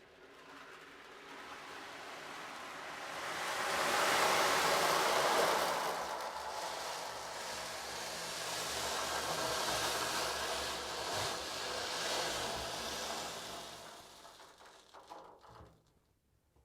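A single long wash of surf-like wave sound swells up over about four seconds, holds, and fades away near the end.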